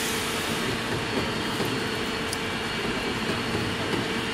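Laboratory two-roll open mixing mill running steadily: its motor and gear drive make a continuous hum with a steady tone as the rolls turn, working a soft PVC compound between them.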